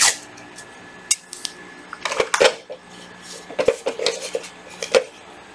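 Hard plastic clicks and knocks as a Makita 14.4V cordless blower, not running, is picked up and handled among other cordless power tools, in a few short clusters.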